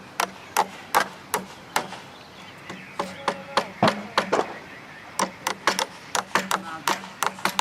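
Hammering on wooden fireworks mortar racks: sharp, irregular knocks at about two to four a second, some overlapping as if from more than one hammer.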